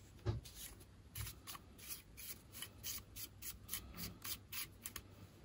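Hands fitting the battery into a small red dot sight: a run of light clicks and scrapes, about two or three a second.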